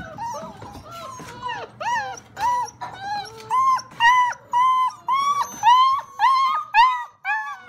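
Blue Great Dane puppies, a few weeks old, crying and whining: a fast run of short, high-pitched yelps, about two or three a second, growing louder about halfway through.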